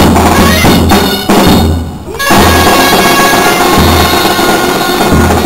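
Dulzainas (Castilian double-reed shawms) playing a jota over the beat of a large drum, with a short drop about two seconds in before the tune resumes.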